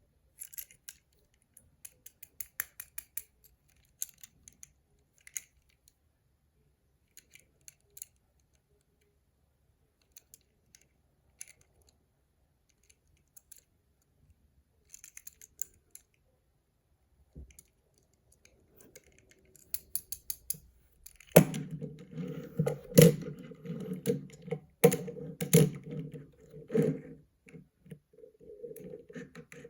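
Plastic toy packaging and toy parts being handled: scattered light clicks and crinkles, then, about two-thirds of the way in, a louder, steady clattering rattle with sharp clicks over it.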